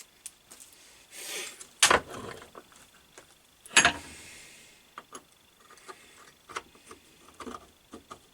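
Metal workshop parts being handled, here the cast-iron fixed steady and its fingers: a short scrape, then two loud metallic clanks about two seconds apart, followed by light clicks and taps.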